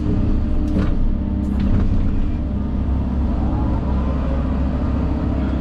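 Engine of a heavy earth-moving machine running steadily, with two short knocks in the first second and a half.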